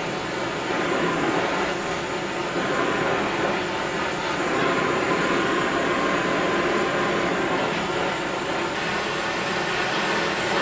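Gas welding torch flame hissing steadily as it heats a strand of barbed wire.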